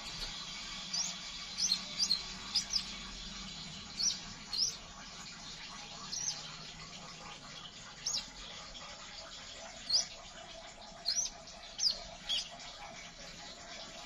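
Male crimson sunbird calling: about fourteen short, sharp, high chirps, each sweeping down in pitch, given singly or in quick pairs at irregular gaps of up to about two seconds.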